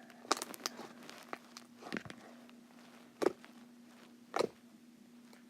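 Homemade slime being pressed and popped: short, sharp pops and small crackles, a quick cluster in the first second and then single louder pops about every second or so, the loudest a little past three seconds in and another past four seconds. A faint steady hum runs underneath.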